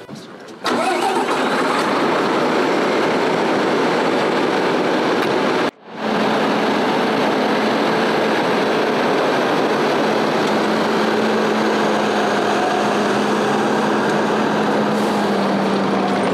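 Fendt tractor's engine running loud and steady with a constant hum, coming in abruptly about half a second in. The sound cuts out for a moment about six seconds in, then carries on unchanged.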